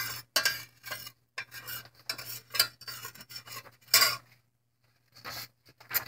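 A utensil stirring and scraping in a stainless-steel saucepan of elderberries boiling in water, with irregular clinks and scrapes against the metal that pause for about a second near the end.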